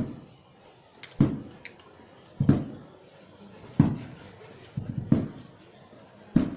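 Slow, steady procession drum beat, about one beat every 1.3 seconds, with a quick lighter stroke or two before some of the beats.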